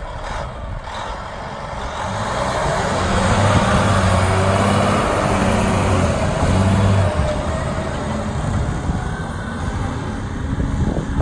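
Volvo A40F articulated dump truck's diesel engine running as the truck drives past, loudest as it comes alongside a few seconds in, then dropping back as it moves away.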